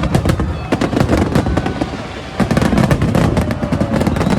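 Fireworks display with rapid, dense crackling pops and bangs over a low rumble, growing fuller and louder about two and a half seconds in.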